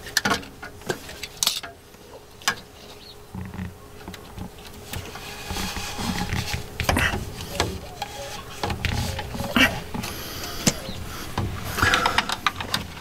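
Handling noise: scattered clicks, taps and scrapes as a perforated metal hanger strap is threaded through a foam tube and fitted up to support a drain pipe.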